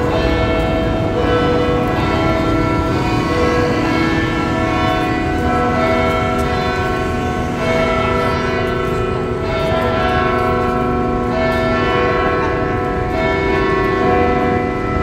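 Church bells pealing: several bells struck one after another, their tones overlapping and lingering, echoing off the surrounding buildings.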